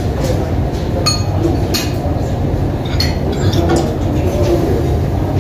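Spoons and cutlery clinking against bowls and dishes, a handful of sharp clinks over the steady low hum of a busy dining room.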